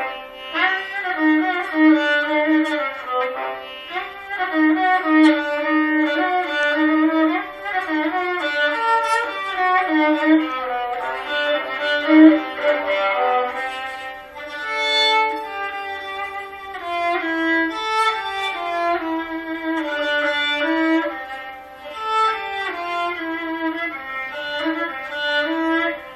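Four-string Cretan lyra with sympathetic strings, bowed, playing a flowing melody of connected notes in its middle and upper range.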